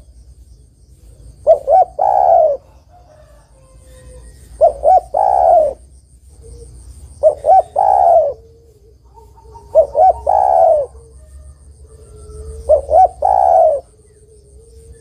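Spotted dove cooing: five phrases of a few quick notes and then a longer note, repeated about every two and a half to three seconds. The uploader presents it as a female spotted dove's call to a male.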